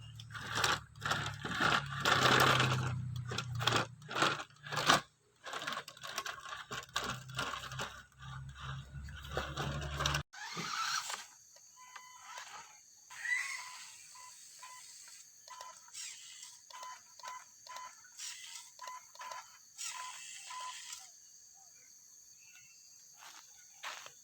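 Small electric motor of a mini RC toy running with a steady low hum under repeated crunching and scraping, which stops abruptly about ten seconds in. After that, a string of short beeps about twice a second mixed with light clicks.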